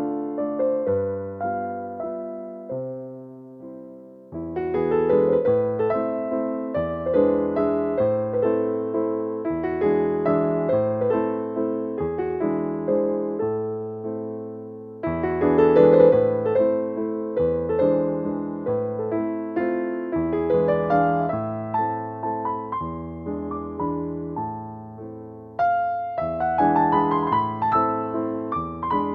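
Background piano music: a calm melody over held bass notes, with a phrase fading and starting afresh every ten seconds or so.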